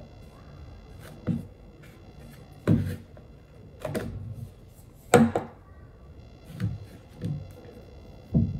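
Hard plastic parts of a Dyson V8 cyclone assembly knocking and clacking as they are handled and pulled apart. There are about seven separate knocks, the loudest about five seconds in.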